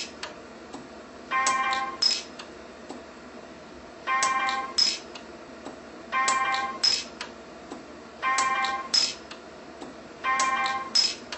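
Orion 150s pulse arc micro welder firing a weld pulse about every two seconds, five times, adding 0.5 mm fill wire to steel. Each pulse is a short tone of about half a second followed by sharp clicks and a snap.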